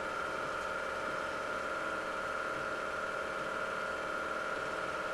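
8 mm film projector running steadily: a constant mechanical whir with several held tones.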